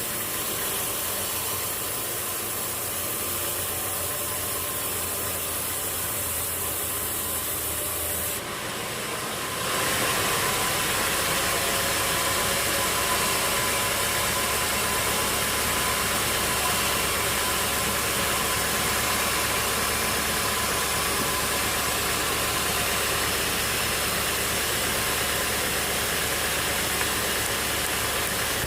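Sawmill machinery running with a steady mechanical noise. It changes about eight seconds in and runs a little louder from about ten seconds on.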